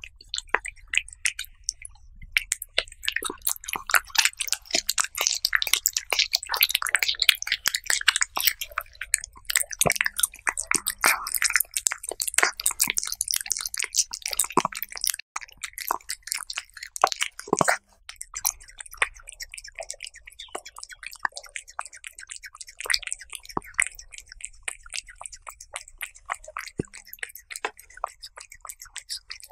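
Cat chewing raw beef slices close to the microphone: a dense run of quick mouth clicks, thickest in the first half and thinning out later.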